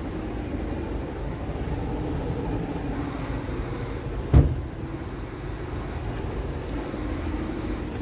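Scania R tractor unit's diesel engine idling with a steady low rumble. A single sharp thump about four seconds in.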